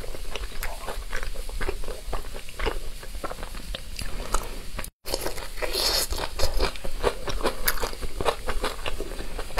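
Close-miked biting and chewing of rice sausage dipped in chili oil: many short, sharp mouth clicks and smacks, cut off by a brief dropout about halfway through.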